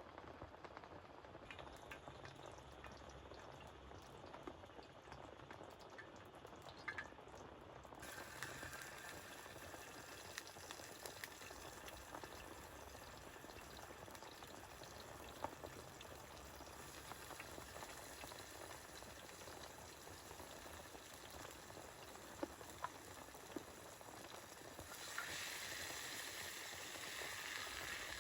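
Liquid boiling in a pot: a faint, steady bubbling hiss that gets louder about eight seconds in and again near the end, with a few small pops.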